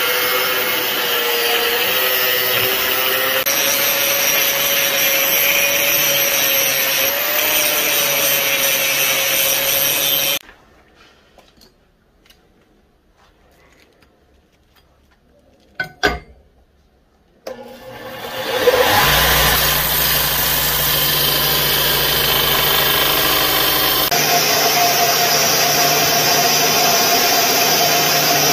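Angle grinder with a cutting disc slicing through circular-saw-blade steel, a steady high whine, cutting off about ten seconds in. After a quiet stretch with one sharp knock, a belt grinder starts up and runs, grinding the steel blank against the belt with a steady hum.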